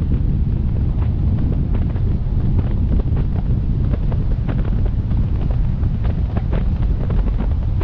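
Wind rushing over a roof-mounted GoPro MAX's microphones on a moving car: a loud, steady low rumble, with scattered light ticks throughout.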